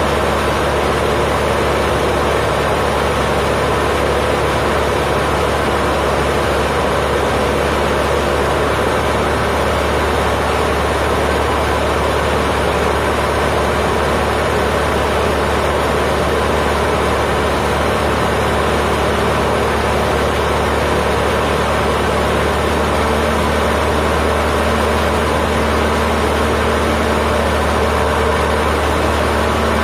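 Cessna 152's four-cylinder Lycoming O-235 engine and propeller running steadily in flight, heard inside the cockpit as a constant drone with airflow noise.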